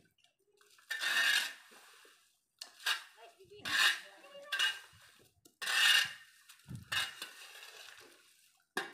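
Dry leaves and twigs scraped and scooped off a concrete road with a hand tool: several short, dry, rattling scrapes about a second apart.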